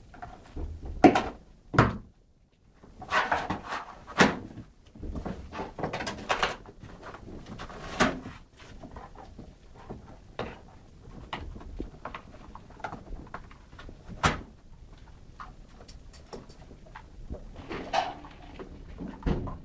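A setter tearing apart a paper box with its mouth and paws: irregular rips, crackles and crumpling of paper and cardboard, with louder tears about a second in, around four seconds, near eight seconds and near fourteen seconds.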